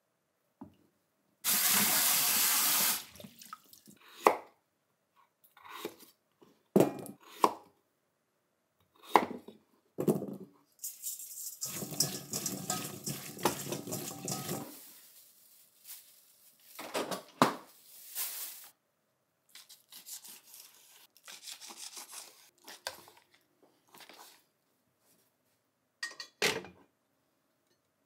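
Kitchen tap running for about a second and a half and shut off, then clinks and wet rustling as peeled taro pieces are swished and rubbed by hand in water in a stainless steel bowl. A sharp clink comes near the end.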